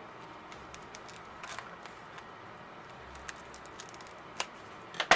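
Light rustling and scattered clicks of packaging being handled as an item is unwrapped, with one sharp click near the end, over the steady background noise of a central heater running.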